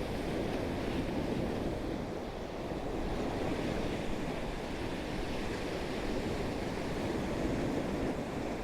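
Sea waves washing and churning against the shore in a steady rush that swells and eases slightly, with some wind buffeting the microphone.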